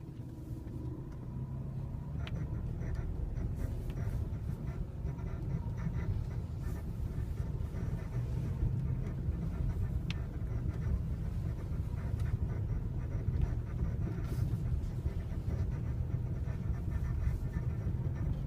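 BMW E90 rear suspension squeaking in short, faint, scattered bursts over the car's steady low rumble; the owner puts the squeak down to the rear floating bushings.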